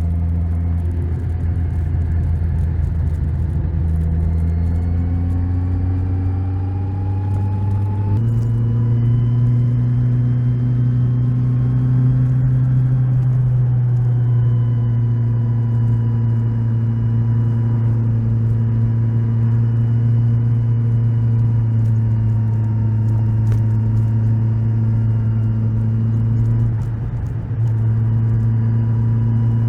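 Kawasaki Z1000SX inline-four engine running under way near the end of its break-in period, its pitch climbing for a few seconds, then jumping up suddenly about eight seconds in and holding steady. Near the end the sound dips briefly, then returns.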